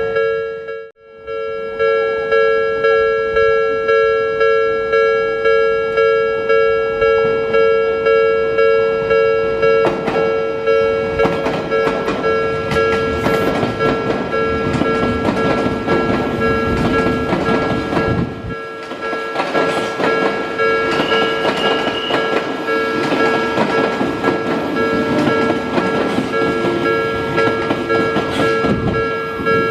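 A Japanese level-crossing alarm bell rings in steady pulses about twice a second, with a brief dropout about a second in. From about ten seconds a train passes with rumble and wheel clatter under the bell, and after a short dip a second train passes.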